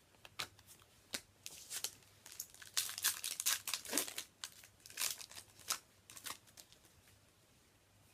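Foil booster pack wrapper crinkling and tearing as it is opened by hand, in a string of short rustles that die away about two-thirds of the way through.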